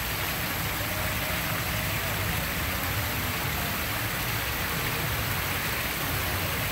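Small waterfall splashing steadily down over stacked stones, a constant rushing hiss with a low rumble underneath.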